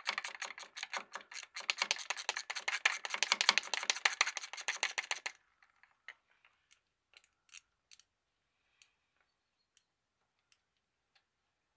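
Hand ratchet clicking rapidly as the last bolt holding the fuel injection pump is backed out. The clicking stops abruptly about five seconds in, leaving a few faint, scattered ticks.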